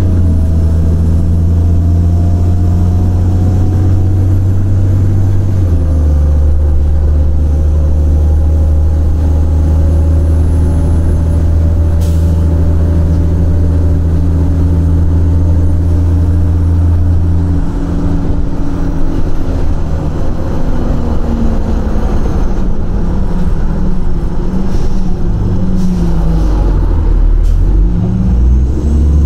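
Cummins ISL inline-six diesel engine of a 2006 Orion VII transit bus running. The engine note holds steady with a step down about six seconds in, then from about 18 seconds its pitch rises and falls repeatedly.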